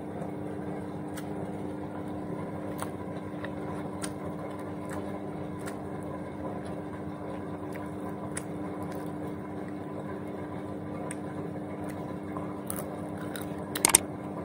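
Washing machine running with a steady hum, under scattered faint clicks and crunches of someone eating crisp fried fish. A couple of sharper clicks come near the end.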